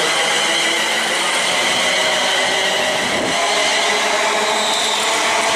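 ScotRail Class 380 electric multiple unit pulling out along the platform, wheels running on the rails under a steady high whine from its electric traction equipment.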